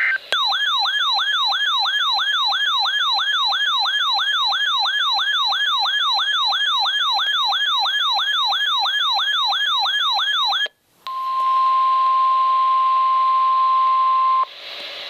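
Electronic siren-style alert tone sweeping rapidly up and down, about three times a second, for about ten seconds. After a brief gap comes the steady NOAA Weather Radio warning alarm tone, a single 1050 Hz tone held for about three and a half seconds, which marks the start of a warning broadcast. Faint radio hiss follows.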